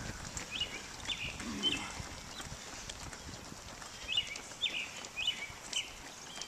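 Running shoes slapping on asphalt as runners pass. A bird gives short, downward-slurred chirps about half a second apart, three early on and four more from about four seconds in, the loudest sounds here.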